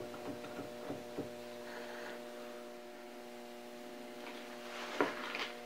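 Steady electrical mains hum, with a few light metallic clicks in the first second or so and a louder knock about five seconds in.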